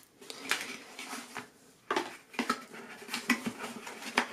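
Hands handling a cardboard shipping box and its paper contents: rustling, scraping and light knocks as fingers work a snug-fitting knife box out, with a short lull about a second and a half in.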